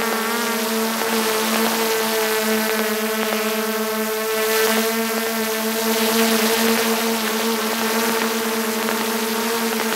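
DJI Mavic 2 Pro drone's propellers and motors humming at a steady pitch while it hovers, with a rushing hiss over the hum, heard up close from a camera mounted on the drone.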